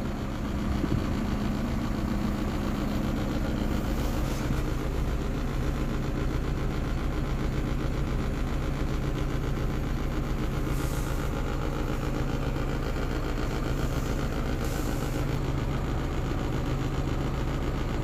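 Iveco Trakker 360 concrete mixer truck's diesel engine idling steadily, heard from inside the cab.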